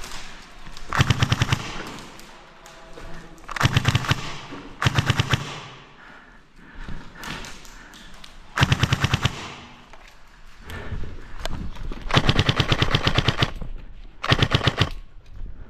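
Airsoft guns firing short full-auto bursts of rapid, evenly spaced shots, about six bursts in all. The longest comes near the end.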